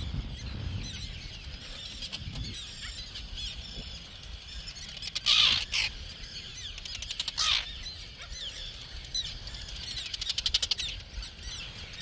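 A colony of terns and black skimmers giving alarm calls overhead: many overlapping sharp calls, with two louder harsh bursts about five and seven and a half seconds in. The birds are warning an intruder away from their nests.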